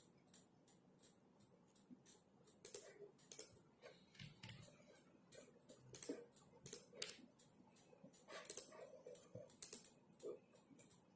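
Quiet typing on a computer keyboard: soft, irregular key clicks, several a second, with brief pauses.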